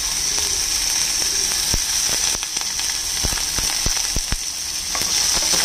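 Chopped onion frying in hot oil with whole spices in a lidded pan: a steady sizzle with irregular sharp crackles and pops, most of them in the middle.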